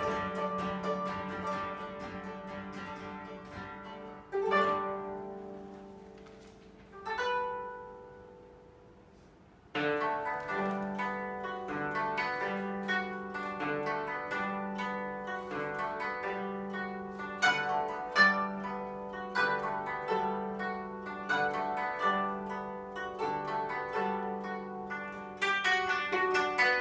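Koto ensemble, with the bass 25-string koto, playing plucked music. About four seconds in the playing thins to two single notes that ring and die away, then the ensemble comes back in with quick, busy plucking for the rest.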